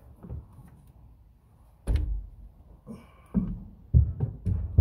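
Dull thunks and knocks as a 62-lb rebuilt transmission for a 1937 Plymouth is manhandled into place and bumps against the car's metal. One thunk comes about two seconds in, then several close together near the end.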